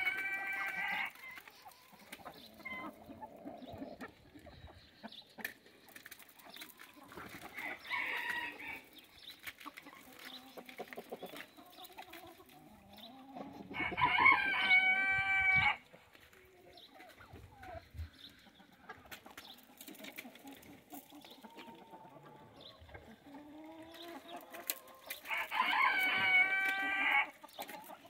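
Farmyard chickens: a rooster crows several times, loudest about halfway through and again near the end, and hens cluck softly in between.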